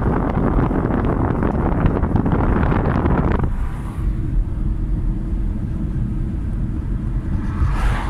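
Wind and road noise inside a moving car: a loud rushing that suddenly drops to a low cabin rumble about three and a half seconds in. Near the end an oncoming car sweeps past.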